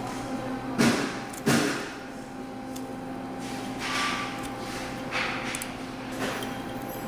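Two sharp knocks about half a second apart, about a second in, then a few softer clatters, over a steady electrical hum.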